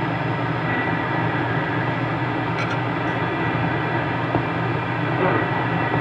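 Steady hiss and band noise from a Cobra 29 CB radio's speaker with the squelch open, with a faint voice barely showing through the noise about five seconds in.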